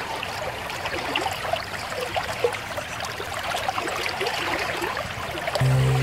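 Running water trickling and bubbling, like a small stream. Music with steady low notes comes back in near the end.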